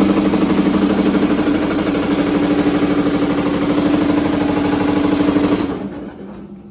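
Baileigh PH-28HD power hammer running, its ram striking in a fast, steady rapid-fire rhythm over a motor drone as a sheet-metal panel is worked between the dies to raise a large bead. It winds down and fades out about five and a half seconds in.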